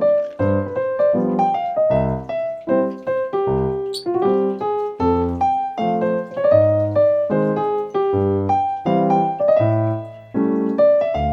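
Background piano music: a steady melody of separate notes.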